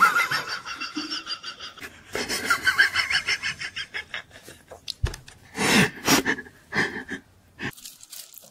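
A man laughing hard in long stretches of rapid, high-pitched pulses. There is a lull about four seconds in, then another burst of laughter.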